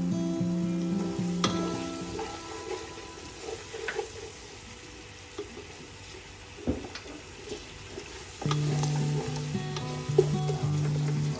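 Masala of onions and spices sizzling in oil in a non-stick pot, with the clicks and scrapes of a plastic slotted spatula stirring it; one sharp scrape a little past halfway. Background music plays for the first two seconds and comes back about three quarters of the way in.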